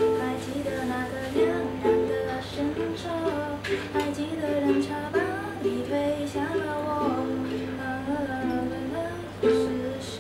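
A woman singing while playing chords on a ukulele.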